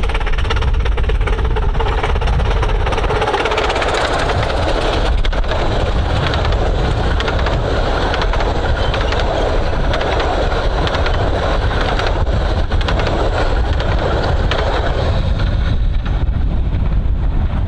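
Miniature railway train running along the track, a steady rumble with a constant clatter of wheels on rail.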